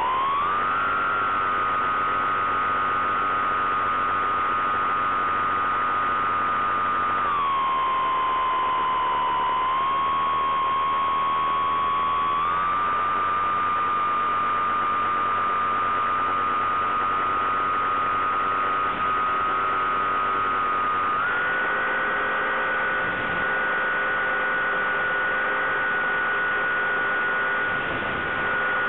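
Bix3 (Bixler 3) RC plane's electric motor and propeller humming in flight: a steady whine that steps down in pitch about seven seconds in, rises again about five seconds later, and climbs a little higher about two-thirds of the way through as the throttle changes.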